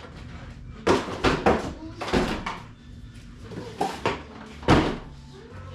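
Cardboard boxes being shifted and set down: a string of irregular knocks and bumps, the sharpest about a second in and near the end.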